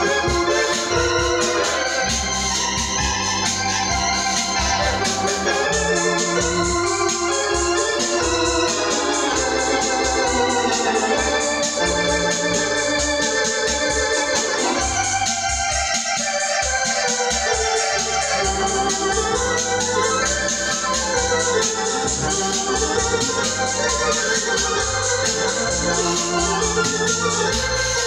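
Hammond home console organ being played: sustained chords and a moving melody over low bass notes, continuous and steady in level.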